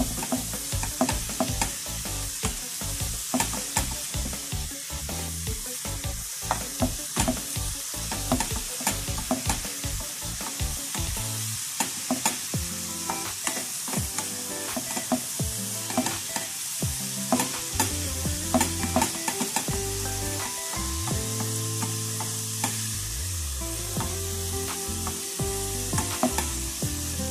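Shredded cabbage and carrot sizzling in a frying pan while being stir-fried with a wooden spatula, with a steady hiss of frying and frequent quick scrapes and taps of the spatula against the pan.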